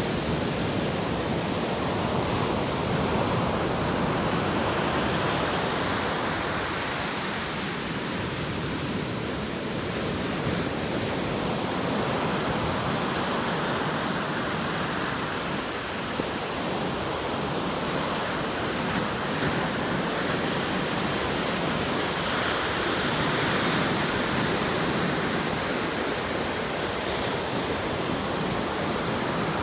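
Atlantic Ocean surf: waves breaking and washing in continuously, swelling and easing every few seconds.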